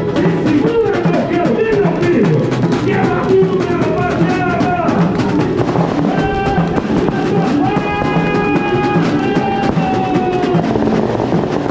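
Samba music played loud through a sound truck's PA: a drum and percussion section with a bass drum keeps a steady beat. About halfway in, long held notes sound over it.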